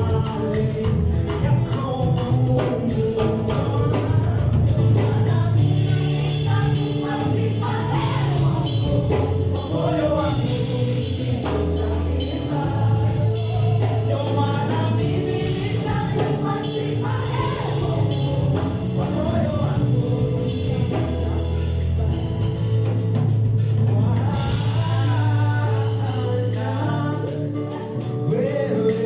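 Gospel worship song played live: group singing over a steady bass line and busy percussion.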